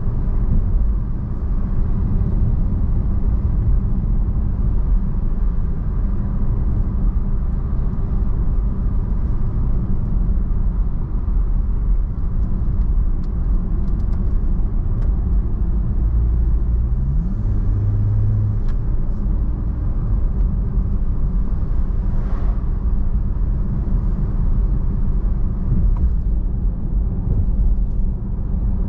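A car driving along a paved road: a steady low rumble of tyres and engine. A brief low hum rises and holds about two-thirds of the way through.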